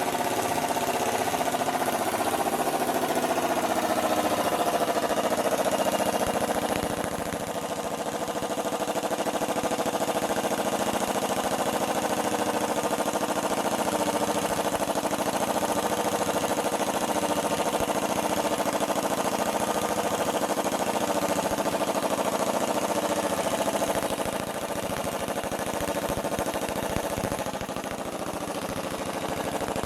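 A motor-driven machine running steadily with a fast, even rattle throughout, dropping a little in level about seven seconds in and again near the end.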